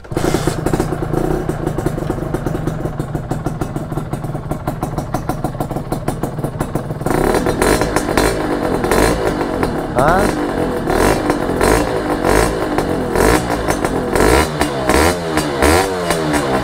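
Honda Nova Dash 125 single-cylinder two-stroke engine running through a DBS expansion-chamber exhaust. It idles steadily for about seven seconds, an idle as smooth as the stock pipe's. From about ten seconds in the throttle is blipped several times, the pitch rising and falling with each rev.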